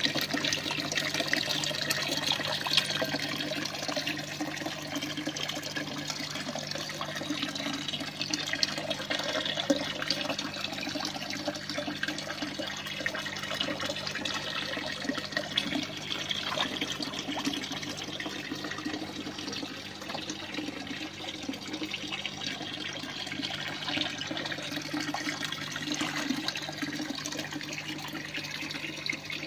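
Water pouring from the hydroponic tower's outlet pipe into the catfish bucket below, a steady splashing stream, over a low steady hum.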